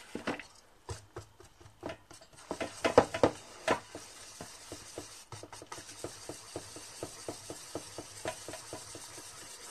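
Wire whisk stirring eggs into powdered sugar in a stainless steel bowl, its wires clicking against the metal. A few louder, uneven knocks come in the first four seconds, then a steady rhythm of about five strokes a second.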